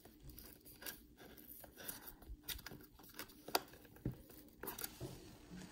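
Cardboard watch box worked open by hand, its stuck inner tray being pried out: faint rustling and scraping, with a few sharp clicks about halfway through.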